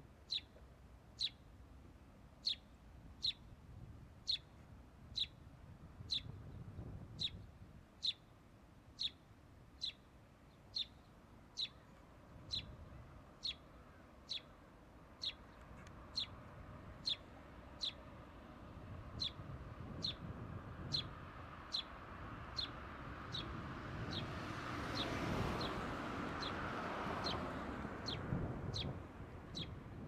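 A small bird repeating a single sharp, downslurred call note about once a second at a steady pace. Beneath it is low wind and water noise that swells for a few seconds near the end.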